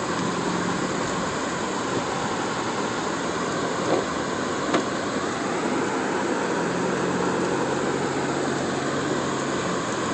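Car interior noise while driving: a steady road and engine hum with a faint low drone, and two small knocks about four and five seconds in.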